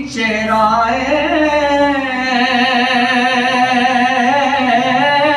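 A man singing a naat (devotional Urdu/Punjabi song in praise of the Prophet), holding one long, drawn-out note whose pitch wavers throughout.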